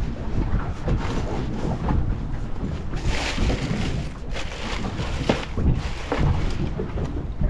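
Wind buffeting the microphone on a boat at sea: a steady rush with stronger gusts about three and four seconds in.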